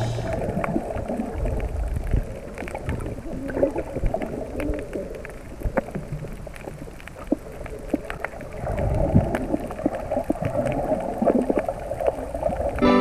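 Underwater sound picked up by a submerged camera: muffled water movement with many scattered sharp clicks and crackles, swelling louder about two thirds of the way through.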